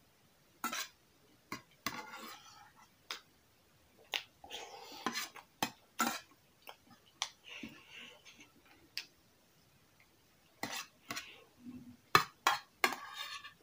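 Metal spoon clinking and scraping against an enamel bowl of potato curry, in many irregular sharp knocks, with slurping and chewing sounds in between.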